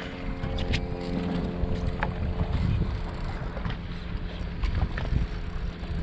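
Wind buffeting the microphone and water moving against a small boat's hull, with a steady whine of several tones that fades near the end and a few sharp clicks.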